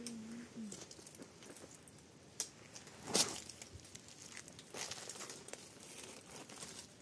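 Crinkling, rustling handling noises with scattered small clicks, and one loud sharp crack about three seconds in.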